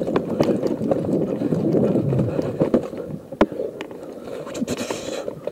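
Running footsteps on a dirt forest floor with clothing and gear rubbing close to the microphone, easing off after about three seconds; a single sharp knock about three and a half seconds in, then a few lighter clicks and taps.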